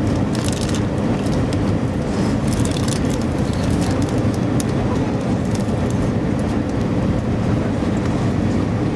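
Airbus A320 passenger cabin in flight: the steady rush of jet engines and airflow, with a faint steady hum and a few light clicks now and then.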